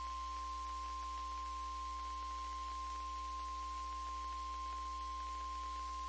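NOAA Weather Radio 1050 Hz warning alarm tone: a single steady high-pitched tone over a low receiver hum and faint static. It is the signal that an urgent warning broadcast is about to follow.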